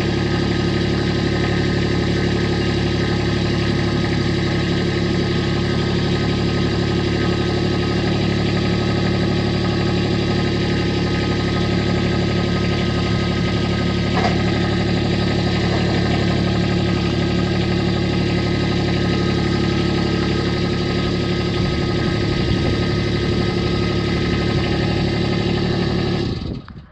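John Deere D140 lawn tractor engine running at a steady speed, then cutting out suddenly as it is shut off near the end.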